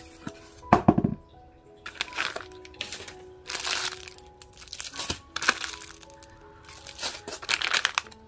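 Plastic food packets crinkling and rustling in about six bursts as they are handled in a styrofoam delivery box, over soft background music with held notes.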